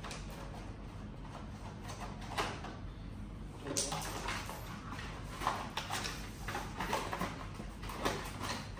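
Cardboard packaging scraping, rubbing and knocking as a plastic remote-control toy car is worked out of its box insert by hand, irregular and busier from about four seconds in.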